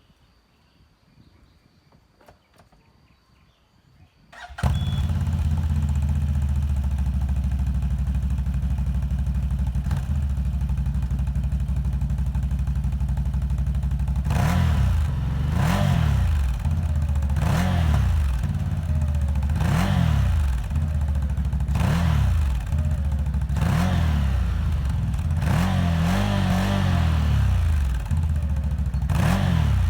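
2021 CFMOTO CForce 1000 ATV's V-twin engine starting about four seconds in and idling steadily, then revved in short throttle blips roughly every two seconds, each rising and falling back to idle.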